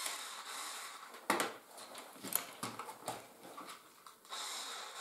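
Hard plastic knocks and clatter as a large brick-built RC fire truck is handled and tipped onto its side on a table, four or five sharp knocks in all. A steady hiss sets in near the end.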